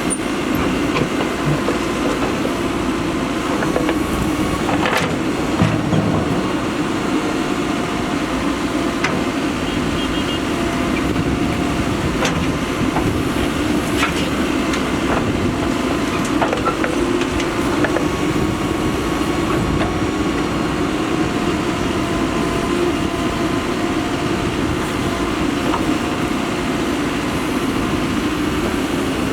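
Diesel engine of a Mahindra Earthmaster SX backhoe loader running steadily under working load, with a few sharp knocks along the way.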